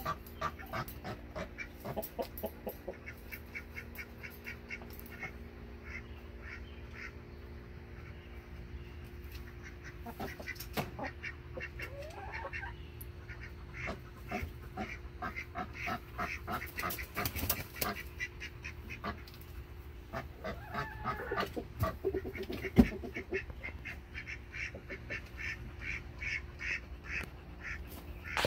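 Polish roosters clucking and calling: quick runs of short clucks with a few drawn-out rising calls, over a steady low hum. One sharp knock about three quarters of the way through is the loudest sound.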